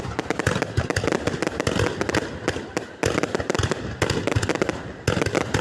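Fireworks going off in a dense run of sharp bangs and crackles, many a second, with a brief lull about three seconds in.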